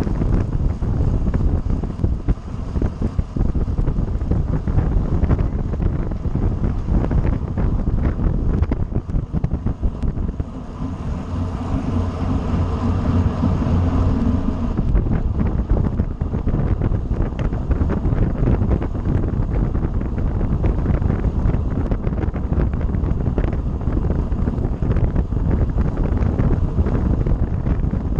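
Wind buffeting the microphone of a camera riding on a racing bicycle at speed, a dense rumbling rush. About ten seconds in, a steady pitched hum joins it for around four seconds.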